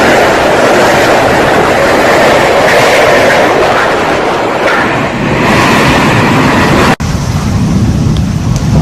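Hurricane-force wind blowing hard: a loud, steady rush of noise. About seven seconds in it cuts off abruptly and gives way to a lower, rumbling wind noise.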